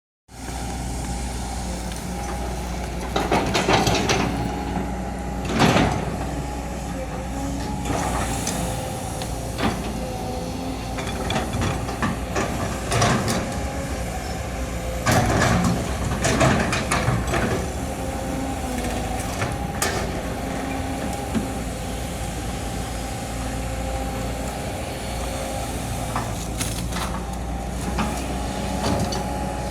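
Hydraulic excavator running steadily with a constant engine drone and a steady whine. Loud cracks and crunches break in over it again and again, the loudest bunched near the start and about halfway through.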